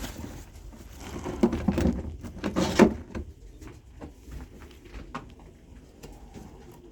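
Pigeons stirring in a loft: a flurry of rustling and scuffling about a second in, then faint scattered clicks.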